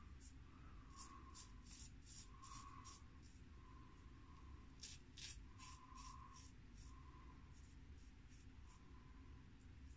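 Faint rasp of a George Wostenholm 5/8 barber's notch straight razor scraping through several days' stubble in short, quick strokes, with a brief lull about four seconds in. The keen edge is cutting the growth easily.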